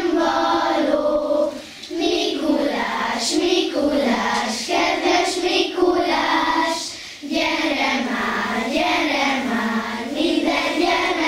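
A class of young children singing a song together in unison, unaccompanied, in phrases of a few seconds with short breaks for breath between.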